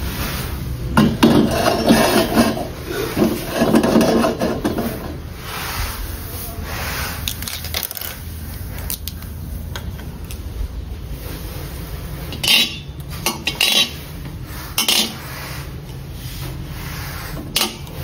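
Stainless steel wok being handled, metal rubbing and clanking, loudest in the first few seconds. Near the end come a few short, sharp clinks as AA batteries land in the metal pan.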